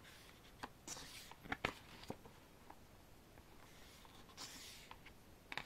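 Pages of a photobook being turned by hand: soft papery swishes and a handful of light taps and clicks, most of them in a cluster between about half a second and two seconds in, with another swish a little after four seconds and a click near the end.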